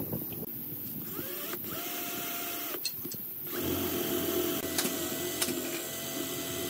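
Cordless drill boring a hole through a small block of wood. The motor whines up to speed about a second in, runs steadily for a second and a half and stops, then starts again and runs steadily for about three seconds.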